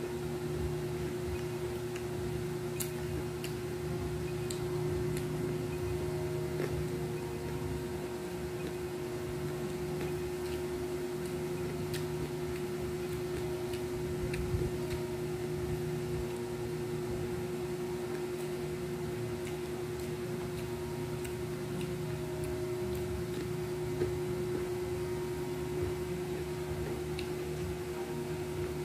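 Steady mechanical hum holding one constant tone, with scattered faint clicks and ticks as crispy crab is picked apart by hand and eaten.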